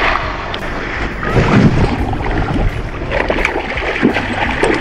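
A hooked fish splashing and thrashing at the water's surface as it is played in to the bank, with wind rumbling on the microphone throughout.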